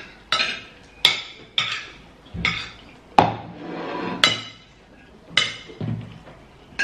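Metal spoons clinking and scraping against ceramic plates as several people eat, about nine sharp ringing clinks at uneven intervals. The loudest comes about three seconds in, followed by a second of softer scraping.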